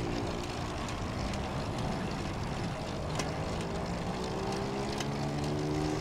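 A steady engine drone that rises and falls slightly in pitch, over the rush of wind and tyre noise from the moving bicycle.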